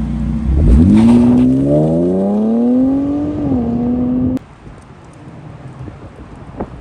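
Infiniti Q60's VR30 twin-turbo V6, fitted with a new full catback exhaust and downpipes, idling and then revved. The pitch climbs quickly about half a second in, keeps rising more slowly, is held for a few seconds and then cuts off suddenly about four seconds in.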